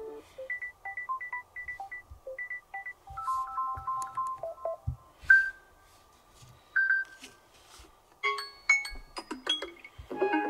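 Samsung Galaxy S22+ built-in ringtones previewed one after another, each cut after a few seconds: short electronic melodies of beeping notes, single chimes and quick plucked notes, with a fuller chord-based tune starting near the end.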